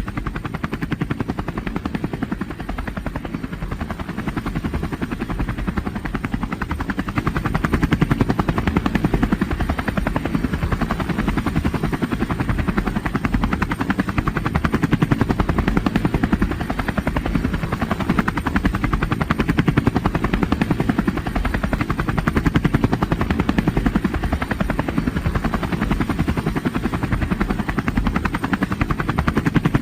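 Helicopter rotor beating in a steady, fast chop, growing a little louder several seconds in.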